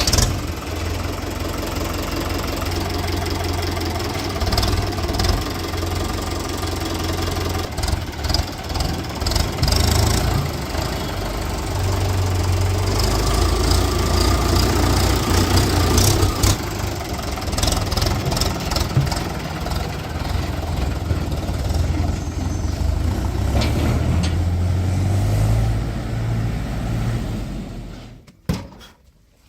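JCB 3DX backhoe loader's diesel engine running steadily, with a few sharp knocks along the way; it cuts off abruptly about a second before the end.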